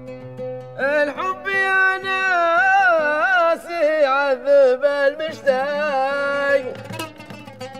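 Arabic song: a singer holds long, ornamented notes that bend and waver, over oud accompaniment and a steady held tone. The singing starts about a second in and ends shortly before the close.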